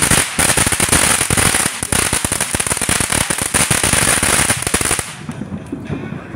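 Ground fountain firework spraying sparks: a steady hiss under dense, rapid crackling. About five seconds in it burns out and the sound stops abruptly.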